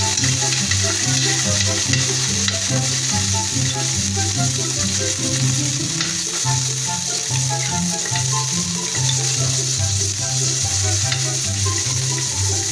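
Garlic cloves sizzling in hot oil in an aluminium wok, with a spatula stirring and scraping the pan. Background music with a steady bass line plays throughout.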